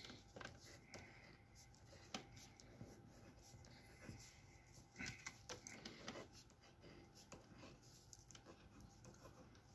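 Near silence, with the faint scratching and small ticks of a pen writing on a sheet of paper, a little busier about halfway through.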